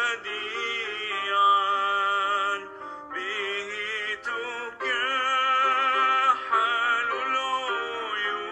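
Arabic Christian hymn music: long, wavering sung notes, broken by short pauses about three seconds in and again near five seconds.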